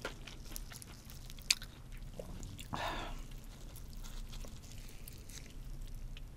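Gloved fingers peeling slices of raw fish off a sashimi cake, close to the microphone: a run of soft wet, sticky clicks and rustles, with one sharper click about a second and a half in and a short rush of noise around three seconds in.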